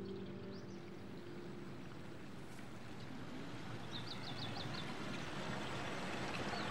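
Steady splashing of water from a fountain spout into its basin. A small bird gives a quick run of about six high chirps about four seconds in.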